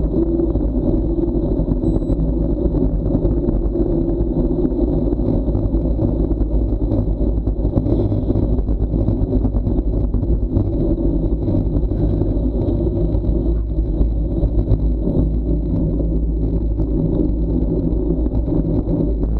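Steady wind rumble on an action camera's microphone during a fast downhill bicycle ride, mixed with the hum of tyres on asphalt. It holds a constant level.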